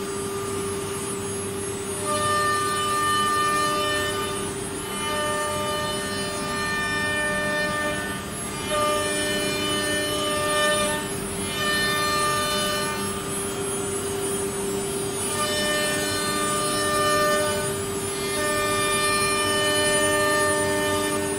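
CNC router running: a steady high spindle whine, with higher machine tones that come and go every couple of seconds as the machine works.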